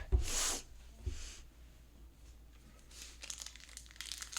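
Foil wrapper of a Pokémon card booster pack being torn open and crinkled: a short rip just after the start and a shorter one about a second in, then quick crinkling from about three seconds in.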